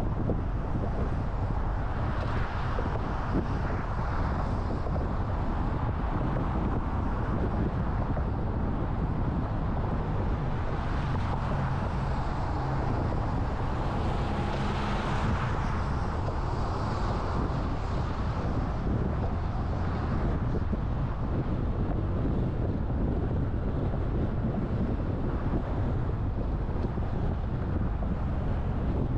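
Steady rumble of road and wind noise from a car driving, with wind buffeting the microphone; it swells a little a few times, around two seconds in and again in the middle.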